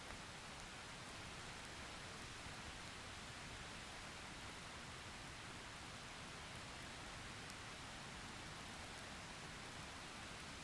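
Steady rain falling: a soft, even hiss with a few faint high ticks of single drops.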